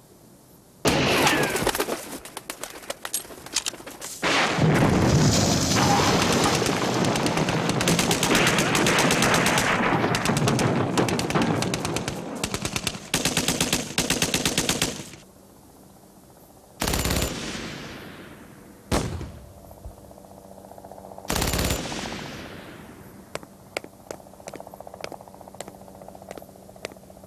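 Automatic gunfire: long, rapid bursts for most of the first fifteen seconds, then three separate loud bangs with echoing tails, then scattered single cracks near the end.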